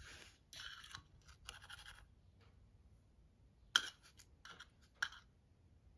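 Short scraping and rustling bursts from a metal measuring spoon and a tin of gelatin powder being handled, then two sharp taps a little over a second apart.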